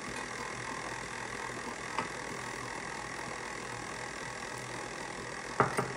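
Steady background hiss, with one light click about two seconds in and a couple of sharp knocks near the end as a hot container of melted butter is handled over a stainless steel stand mixer bowl.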